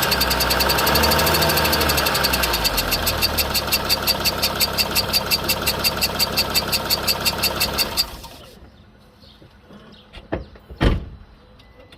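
Mercedes Sprinter van engine running with a rhythmic squeak from the engine bay, about five sharp chirps a second. The engine is switched off about eight seconds in and the squeak stops with it. A couple of knocks follow near the end.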